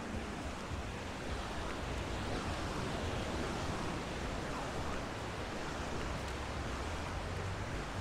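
Steady wash of ocean surf breaking on a sandy beach, an even rushing noise with no distinct single waves standing out.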